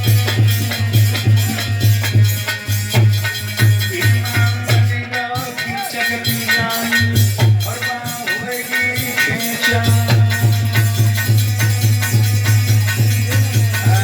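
Instrumental folk music with a deep, steady drum beat, shaker-like percussion and a melodic instrument. The deep beat drops out for a few seconds in the middle and returns near the end.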